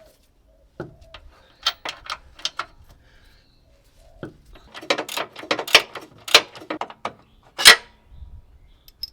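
Metal hand tools clinking and clanking: irregular sharp knocks and rattles of sockets and wrenches being handled on the control arm bolts, coming thick in the second half with one loud clank near the end.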